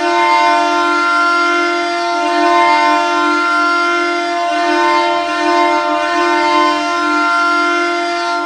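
Ottawa Senators goal horn sounding: one long, steady, loud blast at a single low pitch.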